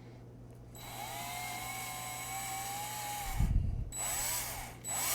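Electric drill with a 3.5 mm bit drilling into an iPhone 7, spinning steadily with a held whine for about two and a half seconds. This is followed by a low bump and two short bursts of the drill near the end.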